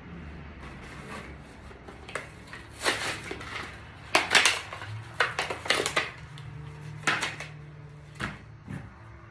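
A string of light knocks and clatter as objects are handled and set down on a work surface. The knocks come in quick clusters, loudest about halfway through.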